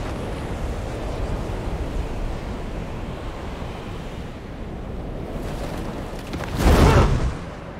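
Steady rushing noise, swelling near the end into a loud surge of noise about half a second long that cuts off sharply.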